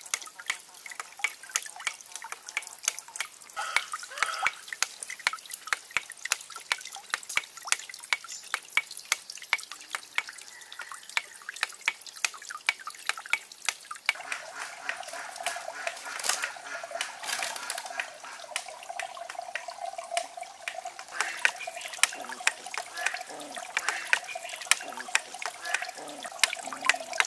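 Water trickling and dripping into a small pond, a dense, irregular patter of small splashes. A steady higher tone joins about halfway through.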